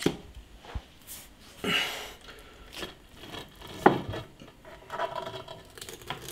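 Scattered knocks, scrapes and rubbing from work on a cast iron fireplace: the mantel shelf is held in place while fire cement is worked in beneath it, with a sharp knock about four seconds in.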